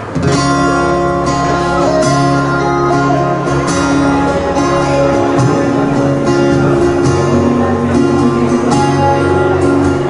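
Live acoustic band: strummed steel-string acoustic guitars over a bass guitar line, with a loud new strummed phrase coming in right at the start.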